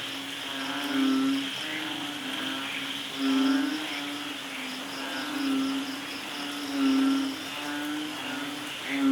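Rain-and-birds nature ambience: a low, held call repeats about every two seconds over a steady hiss, with a fast, even high ticking throughout.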